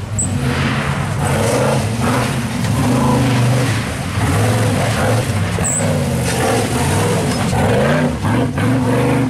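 Off-road buggy's engine revving hard, its pitch climbing and falling again and again as the throttle is worked through the mud.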